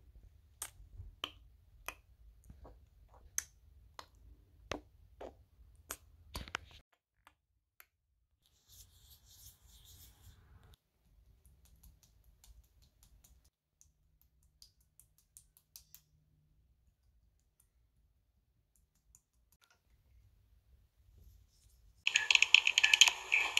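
Paper doll pieces being handled: a series of sharp clicks and taps about once or twice a second for the first six or so seconds, then a long quiet stretch, then a loud burst of paper rustling near the end.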